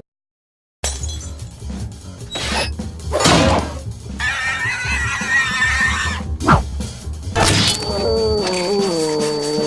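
Cartoon sound effects over a steady low music bed: after a brief silence come several sharp hits and crashes, a warbling high whistle-like tone, and near the end a wobbling tone that slides downward.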